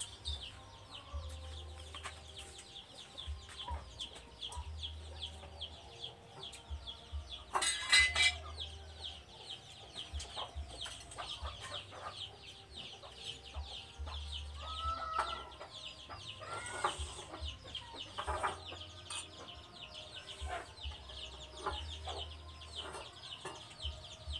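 Farmyard chickens clucking, over a steady run of rapid high-pitched chirping, with one louder call about eight seconds in.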